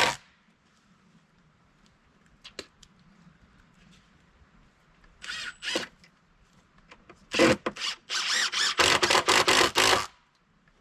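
Cordless power driver driving screws into rack lumber in short trigger bursts, with a longer run of rapid bursts about eight seconds in.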